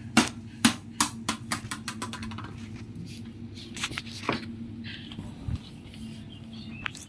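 Small plastic ball bouncing on a concrete floor, the bounces coming quicker and fainter until it settles. A couple of softer knocks follow about four seconds in.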